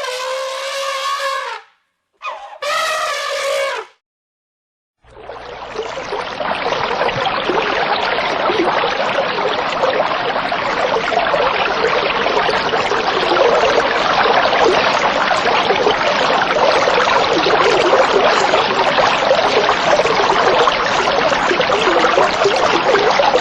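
Two zebra calls, harsh and strongly pitched. Then, from about five seconds in, a loud, steady rushing noise with no pitch or rhythm that lasts to the end.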